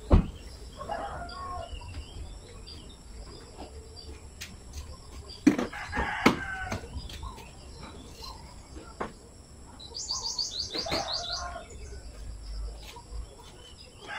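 Rooster crowing three times, loudest about six seconds in. A few sharp knocks come with it, the loudest right at the start, and a small bird gives a quick run of high chirps about ten seconds in.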